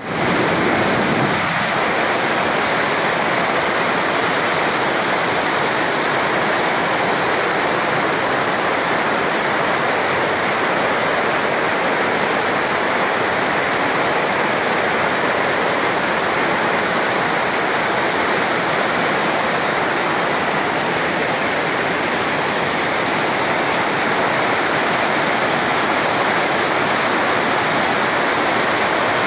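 Fast mountain river rushing through rapids, white water pouring over rocks in a loud, steady rush.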